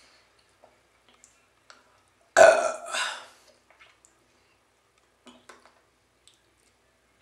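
A woman burps once, loudly, about two and a half seconds in; the burp lasts about a second and fades. It comes from drinking canned beer.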